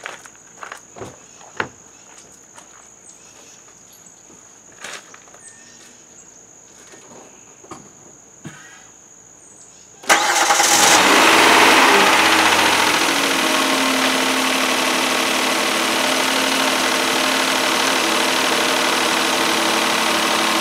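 A few faint clicks, then about halfway through, the 2013 Kia Sorento's 3.5-litre V6 is started and catches at once. It revs up briefly, then settles to a steady idle. It is running on a newly fitted tensioner pulley, idler pulley and serpentine belt, and the pulley noise is much better.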